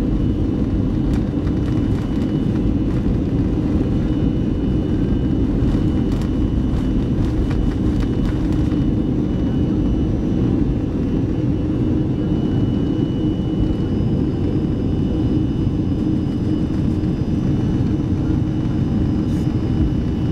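Boeing 737-300's CFM56 turbofan engines at takeoff thrust, heard from inside the cabin during the takeoff roll: a loud steady rumble with a thin high whine over it. A few faint clicks come about halfway through, and a second, higher whine joins about two-thirds of the way in.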